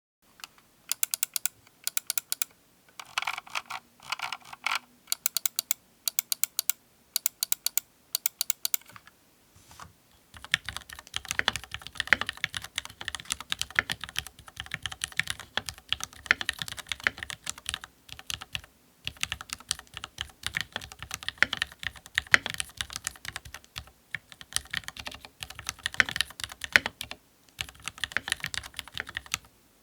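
Mechanical keyboard with Gateron Milky Yellow Pro linear switches and Cherry Olivia keycaps being typed on. For the first ten seconds it is short separate runs of quick keystrokes with pauses between them, then steady fast typing.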